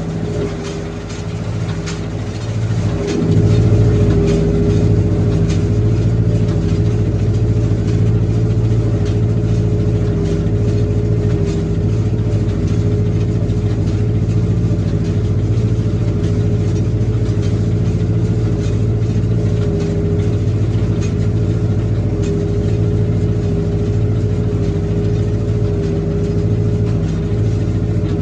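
Tractor engine running steadily at working speed, growing louder about three seconds in and then holding steady.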